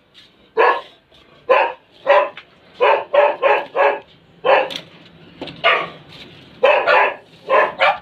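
A dog barking repeatedly: a dozen or more short, sharp barks in uneven runs, some coming three or four in quick succession.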